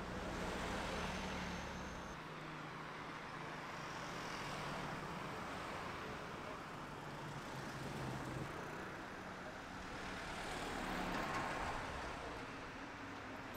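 Road traffic: cars and vans driving past close by. The sound swells and fades about four times as each vehicle passes.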